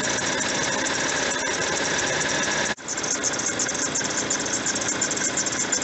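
VW 1.4 TSI four-cylinder petrol engine running, with its auxiliary-belt tensioner pulley adding a loud howl and squeal: the pulley's bearing has play. The sound cuts out for a moment about three seconds in, then carries on.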